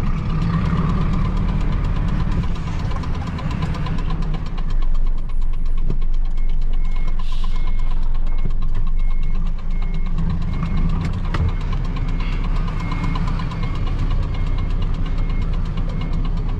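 Semi-trailer truck's diesel engine running steadily. From about seven seconds in, a short high beep repeats about twice a second.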